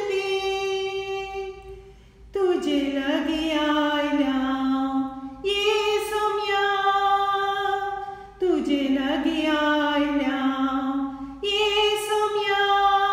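A woman singing unaccompanied, holding long notes that slide between pitches, in phrases of about three seconds each.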